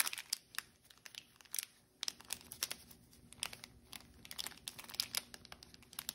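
Foil booster-pack wrapper crinkling in a run of sharp crackles as it is pulled open and the stack of trading cards is slid out.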